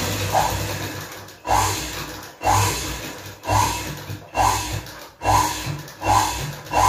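Sewing machine stitching a garment's hem in short repeated runs, about one a second, each starting sharply and fading away.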